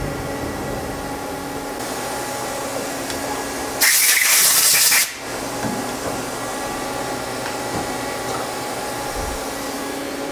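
Mazak Quick Turn 10N-ATC CNC lathe running with a steady machine hum made of several held tones. Near the middle, a loud hiss lasts about a second and stops suddenly.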